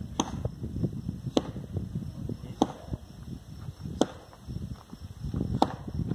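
Sharp taps at an even pace, about one every second and a quarter, like a hiker's steps or pole strikes on a rocky trail. Wind rumbles on the microphone throughout.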